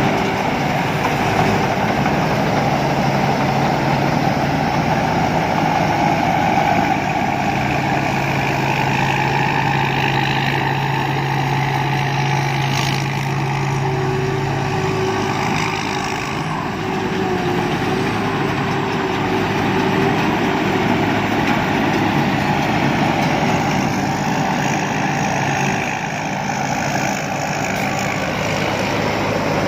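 Rice combine harvester running steadily, its diesel engine and threshing machinery giving a constant mechanical drone; the engine note shifts about halfway through.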